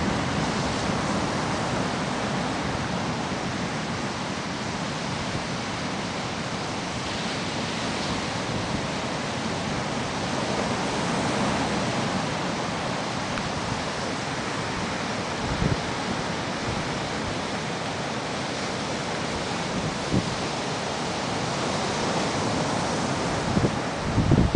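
Steady rush of ocean surf breaking on the beach, swelling and easing slowly, mixed with wind on the microphone.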